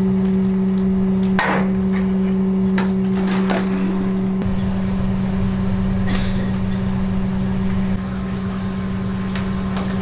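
A steady low mechanical hum, with a few sharp knocks of a tool against the steaming cauldron and its wooden fittings.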